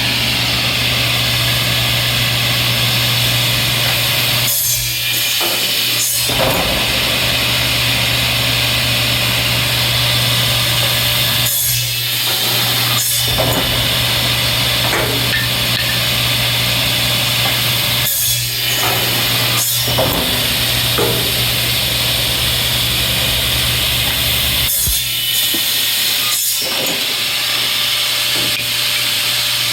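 CTD Machines D45 double miter saw running steadily on its two 12-inch blades, with a constant hum. About four times, roughly every seven seconds, brief sharp sounds come in pairs as the air-powered foot-pedal feed cycles the saw down and back.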